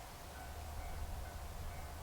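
Japanese railway level crossing warning bell ringing, a repeating electronic ding, over a low rumble.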